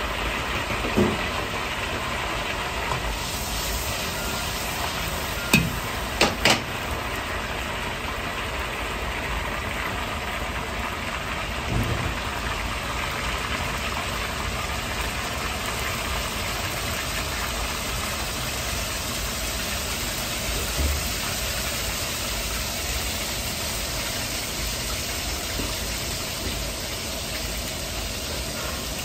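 A commercial gas wok burner running steadily under butter sizzling in a carbon-steel wok. Three sharp knocks come close together about six seconds in.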